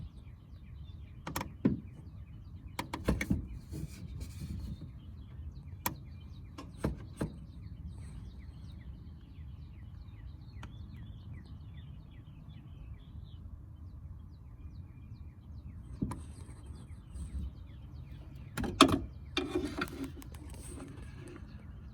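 A long flathead screwdriver prying at the seized hood latch lever of a Mercedes-Benz W211: scattered sharp metallic clicks and knocks, with a stretch of scraping near the end, over a low steady rumble.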